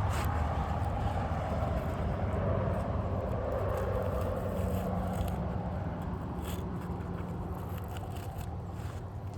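A motor vehicle's engine running with a steady low rumble that slowly fades away, with a few faint scrapes and clicks over it.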